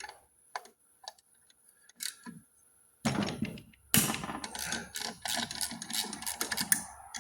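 Quarter-inch drive socket ratchet clicking on the bolts of a turbocharger housing, with metal tool clinks. A few scattered clicks at first, then from about three seconds in a fast run of ratchet ticks with one sharp knock.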